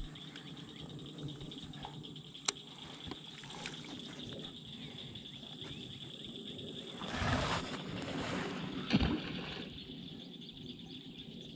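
Water lapping and sloshing gently around a small fishing boat, with a single sharp click about two and a half seconds in and a louder splashy rustle around seven to nine seconds in.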